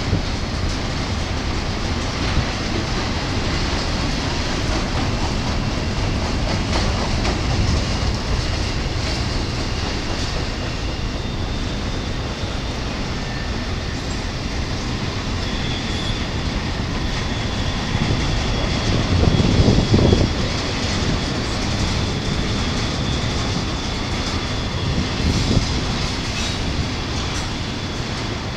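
Double-stack intermodal well cars of a freight train rolling past: a steady rumble of steel wheels on rail with clickety-clack over the rail joints. A faint high wheel squeal comes in about halfway through, and the rumble swells for a moment about two-thirds of the way in.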